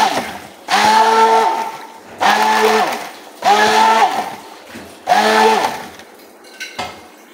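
Immersion (stick) blender motor run in short pulses in a tub of fruit juice. It is running at the start and cuts off, then starts and stops four more times, about once every second and a half. Its whine drops in pitch each time it is released.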